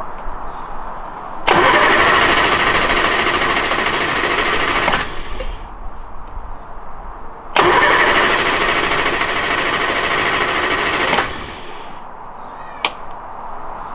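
1969 Reliant Regal engine being cranked on the starter in two attempts of about three and a half seconds each, cut off abruptly each time without catching. A sharp click follows near the end.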